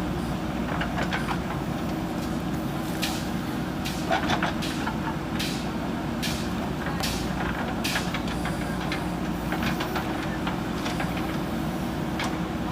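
JCB 3DX backhoe loader's diesel engine running steadily under load, with a series of sharp clanks and knocks of the bucket against broken concrete. The loudest clatter comes about four seconds in.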